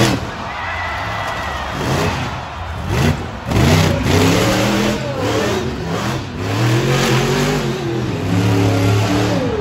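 Monster truck engine revving hard, its pitch rising and falling over and over as the truck drives and spins donuts in the dirt.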